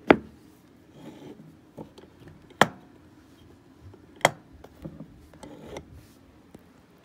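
Three sharp knocks spread over about four seconds, with lighter taps and handling noise between. They come from a hinged wooden block and a cordless drill being handled and set down on a wooden floor.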